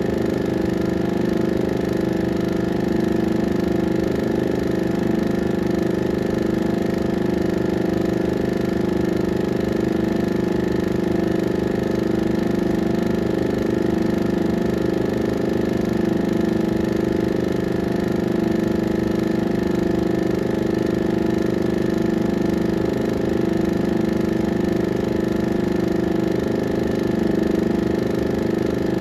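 A 16mm film projector running steadily: a constant motor hum with a fast, even flutter underneath.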